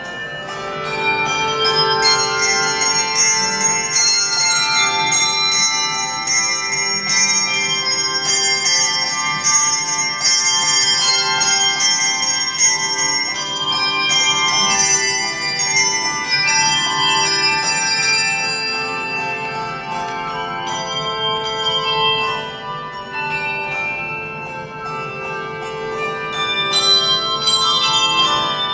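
A handbell choir playing a piece: many handbells ringing notes and chords together, each note ringing on under the next, with a softer passage a little past the middle.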